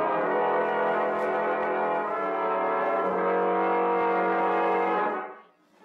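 Brass music bridge between radio-drama scenes: a sustained chord that shifts its lower notes twice, about two and three seconds in, then fades out near the end.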